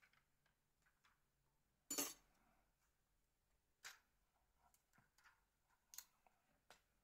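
A few short, sharp clicks and ticks from small phone parts being handled during a Nokia 3330 teardown, scattered through otherwise near silence, the loudest about two seconds in.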